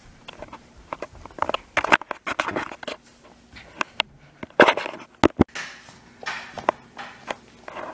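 Handling noise from a handheld camera being moved about: irregular knocks, clicks and rustles as things are handled on a table, the loudest knocks about halfway through.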